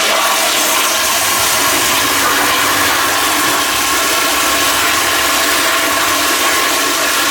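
Two toilets flushing at once with a loud, steady rush of water.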